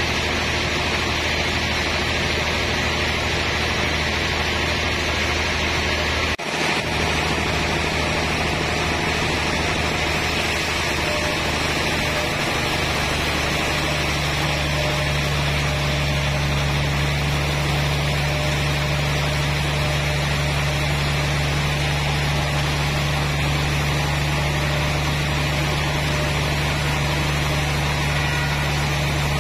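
Large log band saw running as its blade cuts through a big trembesi (rain tree) log: a steady machine noise with a constant hum. The hum grows stronger about halfway through, and the sound drops out for a moment about six seconds in.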